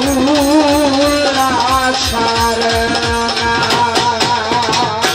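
Instrumental Bengali baul folk music: a wavering flute melody over a quick, regular drum beat, with steady held notes joining about two seconds in, closing on a sharp final stroke near the end.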